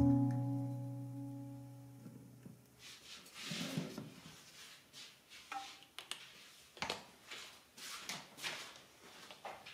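A sustained chord of background music fades out over the first three seconds. Then come several short, soft hissing squirts with light clicks from a hand spray bottle misting the clamped wooden mandolin body.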